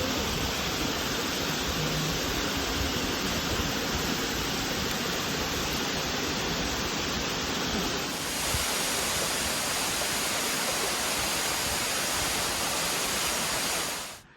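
Waterfall: a steady rush of falling water. It shifts slightly in tone about eight seconds in and fades out just before the end.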